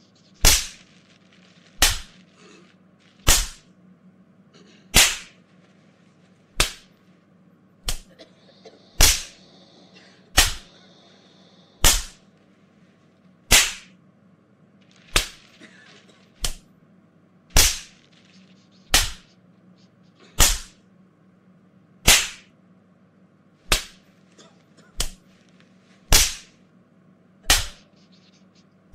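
Belt-whipping sound effect: a sharp whip-like crack repeated about every second and a half, some twenty strikes in a row.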